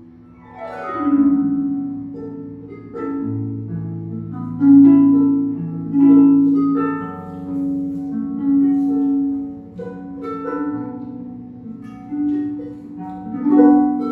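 Concert pedal harp playing alone: a quick downward glissando about a second in, then plucked notes and chords ringing on in a slow, gentle melody.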